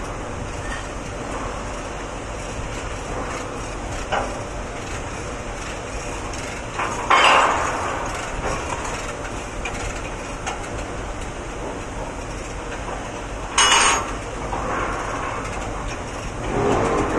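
Steady machinery hum of a pipe welding shop, broken by two short loud metal clanks about seven and thirteen and a half seconds in, with the noise swelling again near the end.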